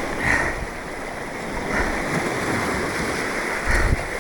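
Seawater washing and splashing in a steady rush, with a few brief swells and a low buffet of wind on the microphone near the end.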